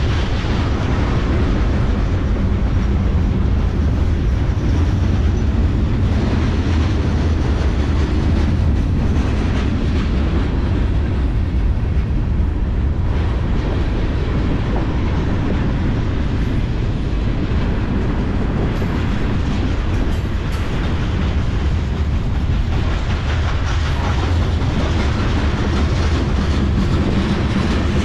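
Freight cars of a mixed freight train (tank cars, boxcars and covered hoppers) rolling past close by: a steady, loud rumble of steel wheels on rail, with scattered clicks.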